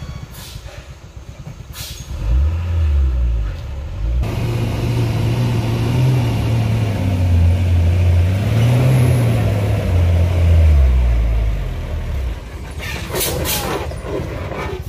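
Diesel engine of a loaded Hino truck pulling hard up a steep dirt climb, its deep note wavering in pitch and rising for a moment before easing off. There is a short burst of hiss near the end.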